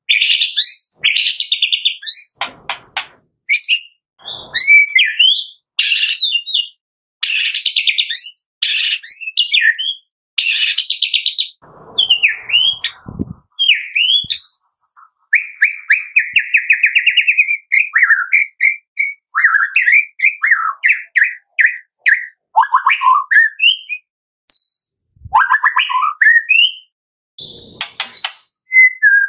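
Male white-rumped shama (murai batu) singing a long run of varied phrases: fast trills, clear whistled and sliding notes, and harsh rattling notes, with short gaps between phrases.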